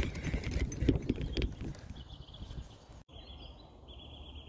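Irregular knocks and rustle on a phone microphone outdoors, fading out, then faint high-pitched held calls from a bird, three in a row, each about half a second long.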